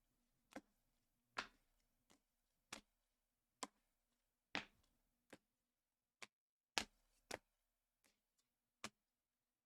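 Near silence broken by faint, irregular short clicks and taps, about eleven in all, one sharper than the rest about two-thirds of the way through.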